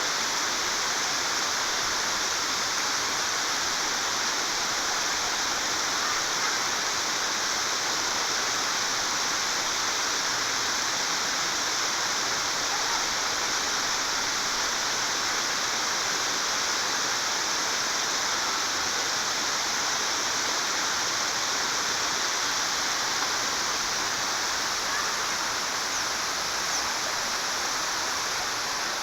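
Steady rush of water, an even unbroken noise with no let-up, typical of water pouring through or over a dam.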